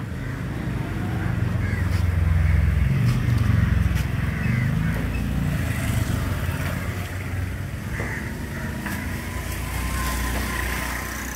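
A motor vehicle's engine rumble that swells to its loudest a few seconds in and then slowly fades, as the vehicle passes by. A few faint clicks sound over it.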